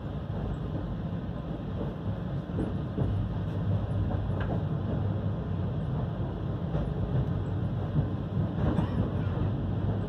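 Passenger train in motion heard from inside the carriage: a steady low rumble of the wheels running on the track.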